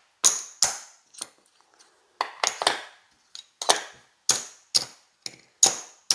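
Casino chips clicking against one another as they are picked up and set down in stacks on a craps table: about a dozen sharp clicks at irregular intervals, some in quick pairs.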